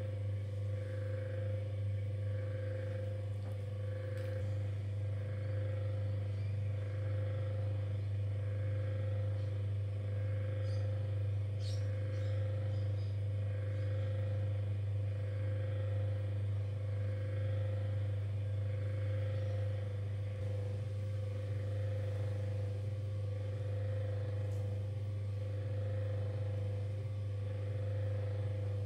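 Electric potter's wheel motor humming steadily as the wheel head spins, with a faint regular pulse about once a second.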